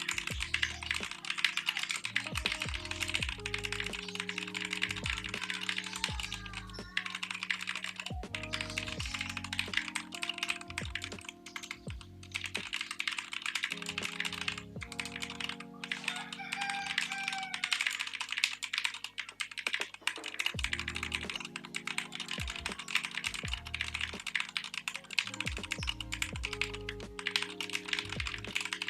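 Fast, continuous typing on a Keychron K2 mechanical keyboard: a dense patter of key clicks with a couple of brief lulls near the middle. Background music plays underneath.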